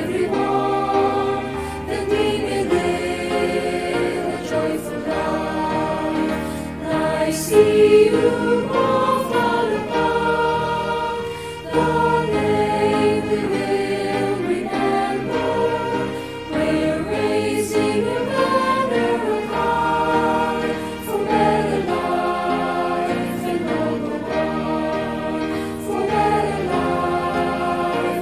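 A choir of students singing a song together, the voices carrying the melody continuously.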